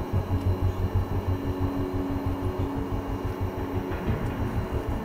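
Boeing 737 cabin noise while taxiing: steady engine hum with a few held tones over an uneven low rumble.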